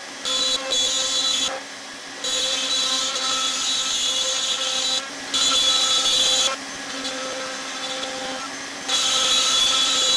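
CNC router spindle running with a steady whine as it cuts out a part, with no vacuum running. The cutting noise jumps abruptly between louder and quieter stretches several times.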